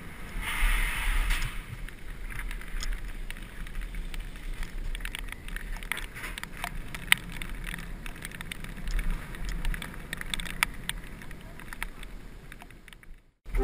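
Mountain bike rolling over hard floors and a metal-grating walkway, with scattered sharp clicks and rattles from the bike and a steady low wind rumble on the microphone. A burst of hiss comes about half a second in, and the sound cuts out abruptly just before the end.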